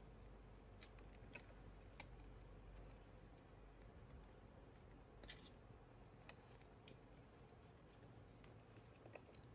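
Faint handling of paper banknotes and small paper envelopes: soft rustling with a few light clicks scattered through.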